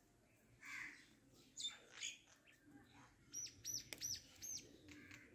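A small bird chirping: a few short high notes, then a quick run of four arched chirps in the second half.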